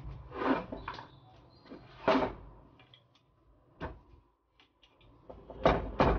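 Short metallic knocks and clanks from a submersible motor's metal housing and a hand tool being handled on a workbench while its bolts are tightened. The loudest knock comes about two seconds in, with a few lighter ones before and two more near the end.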